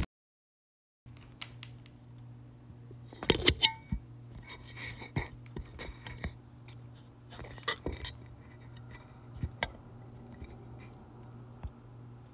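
Light clinks and knocks from objects being handled, loudest in a quick cluster about three and a half seconds in, over a steady low hum. The first second is dead silent.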